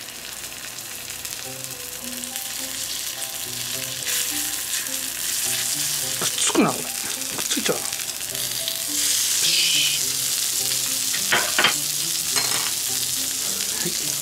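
Cubes of sirloin steak sizzling in olive oil on a small one-person yakiniku hot plate. The sizzle grows louder as each piece is laid on, with a few sharp crackles.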